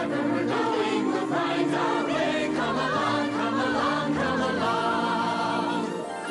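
Choir singing a song over instrumental backing: the cartoon's opening theme music.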